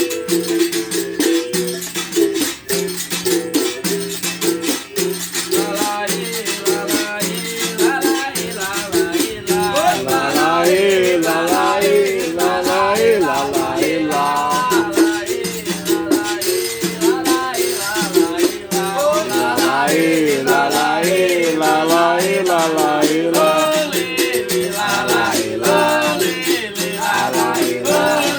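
Berimbau played in a steady rhythm, its low twanging note broken into repeated strokes, with the shaken caxixi rattle. From about six seconds in, a voice sings along over it.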